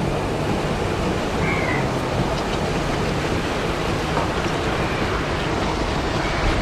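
Steady rushing noise of wind and water, even throughout, with no distinct single event.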